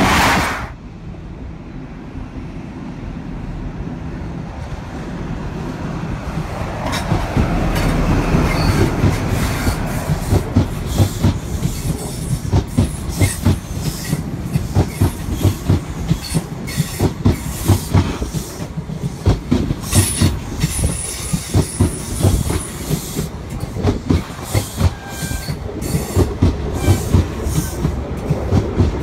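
LNER Class 43 HST train of Mark 3 coaches rolling past a station platform. Its wheels click over the rail joints, the clicks coming louder and quicker as it gathers speed, over a low steady rumble.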